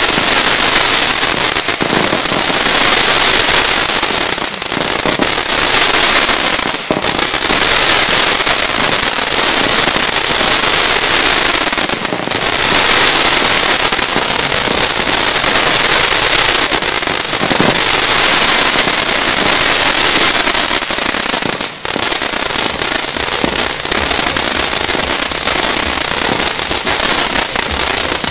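Titelverteidiger firework battery (EK04244) firing a continuous stream of comets with glittering, crackling tails: a dense, steady hissing crackle with three brief lulls.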